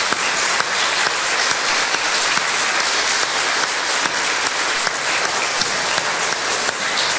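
Congregation applauding: many people clapping steadily.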